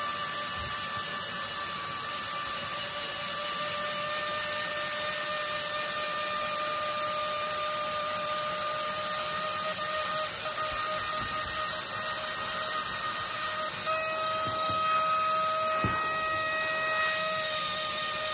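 Handheld pneumatic air pen buzzing steadily against the stone around an ammonite, a high tool buzz over air hiss. Its pitch steps up slightly about 14 seconds in, and there is one soft knock a little later.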